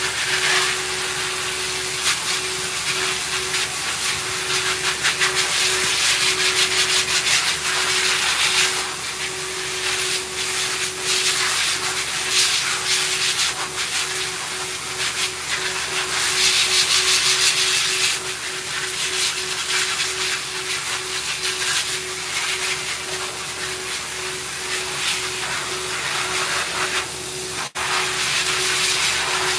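High-velocity pet dryer blowing air through its hose onto a small dog's coat. It makes a steady rushing hiss over a constant motor whine, swelling and easing as the nozzle moves over the coat, with a brief dropout near the end.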